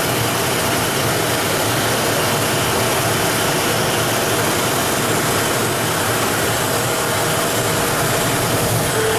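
YDN-85 plastic waste film recycling machine running: a steady, even machinery noise with a faint constant hum, unchanging throughout.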